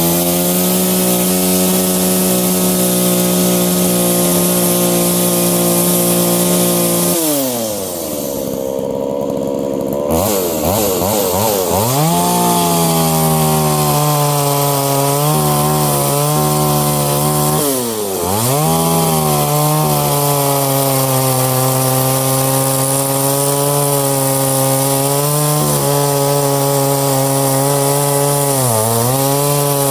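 Poulan 3400 two-stroke chainsaw running at high revs, held steady for long stretches. The revs fall away to a low idle about seven seconds in and pick back up a few seconds later. They dip briefly again twice more.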